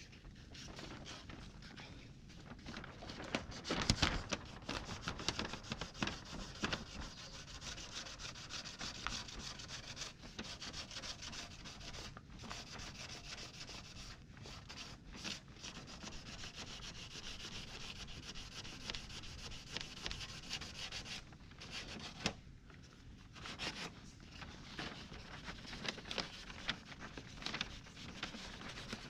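Sanding on a car fender during collision repair: a continuous run of short rubbing strokes with brief pauses.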